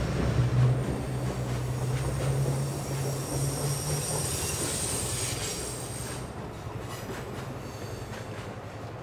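Passenger cars of a train rolling past on a curve, with high wheel squeal in the middle. The low drone of the EMD FP9A diesel locomotives that have just passed fades out about four seconds in, and the train noise grows fainter toward the end.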